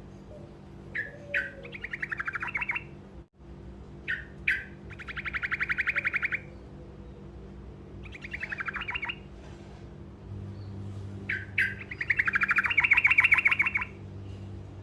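Trucukan (yellow-vented bulbul) singing its short rolling trill: about five bouts of fast repeated notes, each a second or two long, the loudest near the end. A steady low hum runs underneath.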